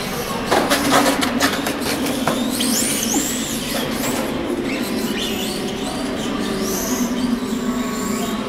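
Radio-controlled model car's motor whining, its pitch rising and falling as the car speeds up and slows around the cones. A quick run of sharp clicks and knocks comes about half a second to a second and a half in.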